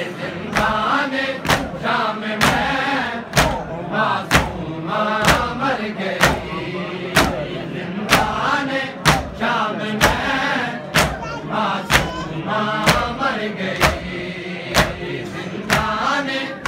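A group of men chanting a noha, a Shia mourning lament, in unison, with sharp chest-beating slaps (matam) struck together in time, about one a second.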